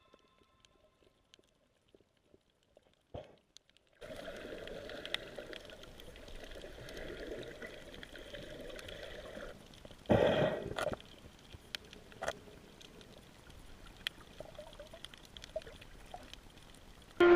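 Water trickling and gurgling, starting about four seconds in, with scattered clicks and a louder rush of water about ten seconds in.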